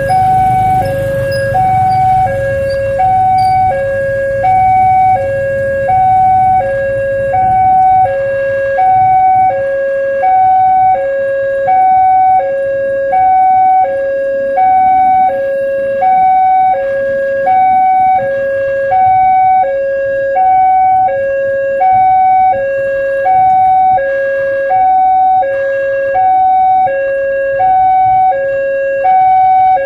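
Electronic warning siren of a railway level crossing, warning of an approaching train with a two-tone alarm: a lower and a higher tone alternate about every 0.7 seconds without a break. A low rumble fades away over the first several seconds.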